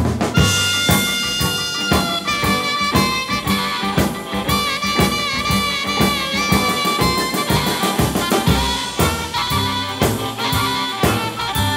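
Instrumental break in an upbeat boogie-style rock-and-roll song: a lead instrument plays long held, wavering notes over a steady drum beat, with no singing.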